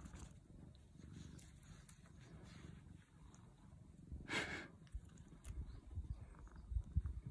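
A cat stirring on a rock close to the microphone: faint low rustling, one short rush of noise about four and a half seconds in, and a few soft bumps near the end.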